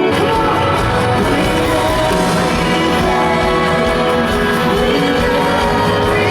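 Music played by a full band: drums and bass come in right at the start and carry on under sustained chords.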